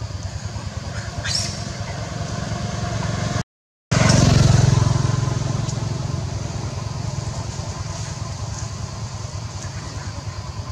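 A motor engine running steadily with a low, rapid pulse. It swells louder for a moment after a brief total dropout about three and a half seconds in.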